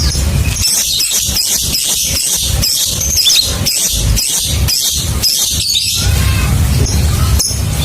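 Lovebird ngekek: a long, fast chattering run of high chirps, about three a second, which breaks off about six seconds in into a few scattered chirps. A steady low rumble runs underneath.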